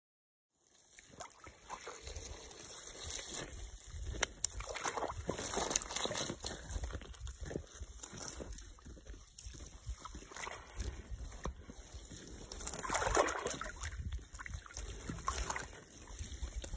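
Open water sloshing and splashing in a hole cut through lake ice as a rope line runs through it, swelling louder in surges, with a low rumble underneath.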